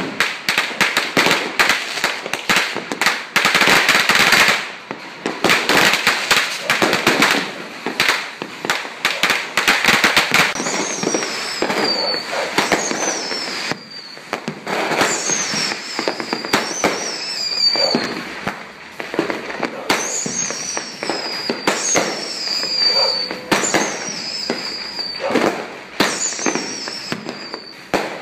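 Consumer aerial fireworks cakes firing: rapid, dense crackling bangs for about the first ten seconds, then a run of shots, each with a high whistle that falls in pitch, repeating every second or so.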